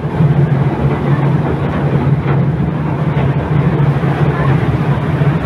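River cruise boat's engine running with a steady low hum as the boat sits at or pulls away from the pier.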